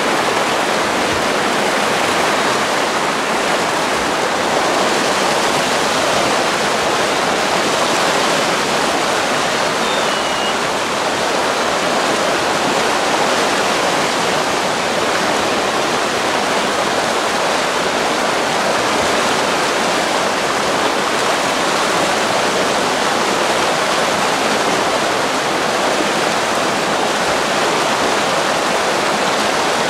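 Steady rush of a shallow river running over a gravel bed.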